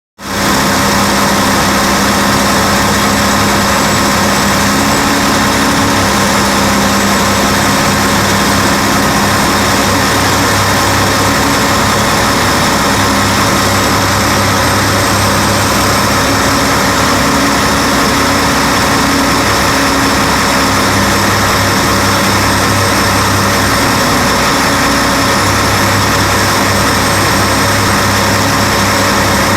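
Heavy diesel engine of an L&T CK mining excavator running steadily as it works, its low hum strengthening and easing every few seconds as the load changes.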